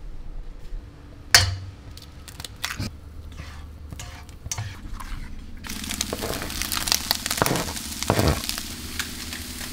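A few sharp knocks and clicks of kitchen work, the loudest a little over a second in. Then, about six seconds in, eggs start sizzling steadily as they fry in coconut oil in a frying pan, with a spatula stirring and scraping.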